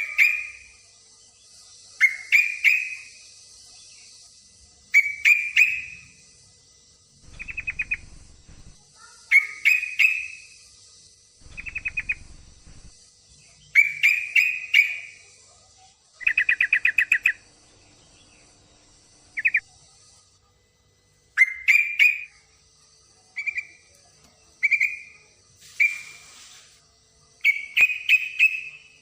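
A yellow-vented bulbul (trucukan) calls in short, bubbly chirping phrases repeated every couple of seconds, with a few faster chattering runs. It is offered as a female in breeding condition calling to males, used to lure and stimulate male trucukan to sing.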